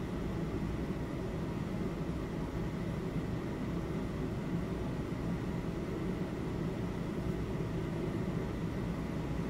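Steady room background noise: a low rumble and hiss with faint steady high tones, unchanging throughout, like ventilation or equipment running in an empty room.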